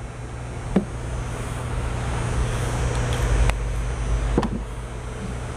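Steady mechanical hum and hiss of shop background noise, swelling a little midway, with three light clicks of small parts or tools being handled.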